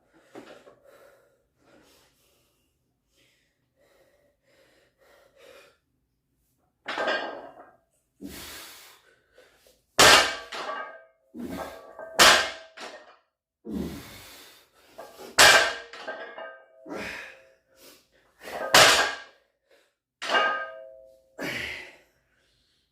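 A set of barbell deadlifts. After a quiet start, the loaded bar is set down on the floor with a thunk and a brief metallic clang about every one and a half to two seconds, with hard breaths between the reps.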